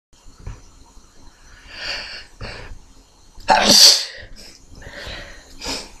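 A person sneezing: one loud, sharp sneeze about three and a half seconds in, with softer breathy sounds before and after it.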